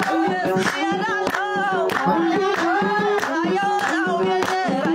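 Group singing of a zar spirit-possession chant with steady hand clapping, a little under two claps a second.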